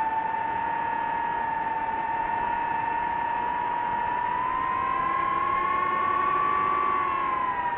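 DJI FPV drone's electric motors and propellers whining steadily. The pitch rises slightly with throttle from about halfway, then drops back near the end.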